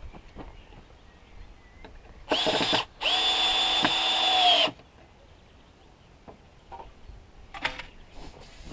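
Handheld electric drill running in two bursts, a short one and then a longer one of about a second and a half, its pitch sagging as it stops. A brief clatter near the end.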